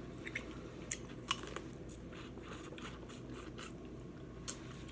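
Faint scattered clicks and crackles of eating and handling seafood at the table, one sharper click about a second in.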